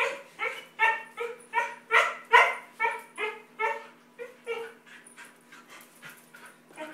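Siberian husky giving a rapid string of short whining yips, about two or three a second, in excited greeting. The calls are loudest about two seconds in and grow fainter after about four seconds.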